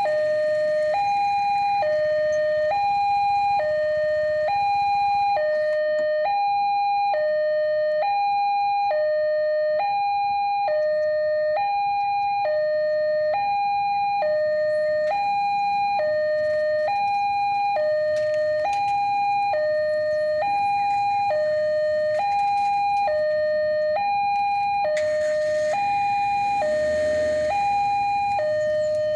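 Railway level-crossing warning alarm sounding: an electronic two-tone signal alternating steadily between a high and a lower note about once a second, meaning a train is approaching and the barrier is down. A rushing noise swells briefly near the end.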